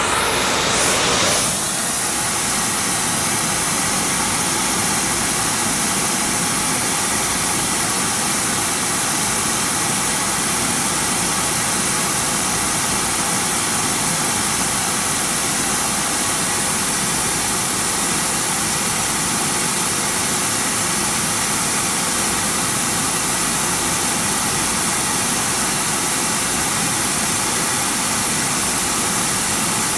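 Gas-fired powder spray-welding torch running steadily, a continuous hissing rush of flame and spraying metal powder, as a build-up coat goes onto a worn bearing journal on a turning motor shaft. A fume extractor runs under it.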